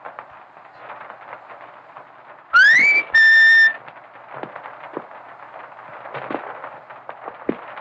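A whistle that slides upward in pitch, breaks off, then sounds one held note, loud and short, over the steady crackle and hiss of an early film soundtrack.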